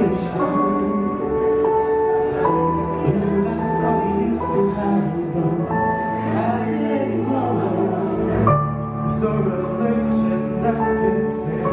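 A vocal group singing a slow ballad in harmony, a male lead voice with vibrato over long, held chords from the other voices.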